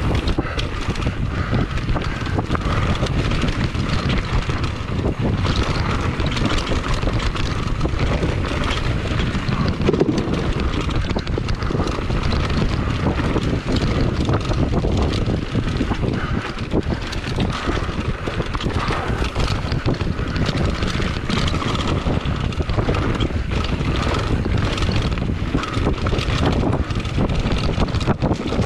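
Wind buffeting the microphone of a mountain bike descending a dirt trail at speed, mixed with tyres rolling over dirt and the bike rattling and knocking over bumps.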